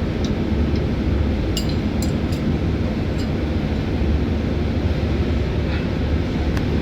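Steady low rumble of shipboard machinery in a tanker pump room, with a few sharp metallic clinks of tools and pipe fittings being handled, three close together about a second and a half in and one more near the end.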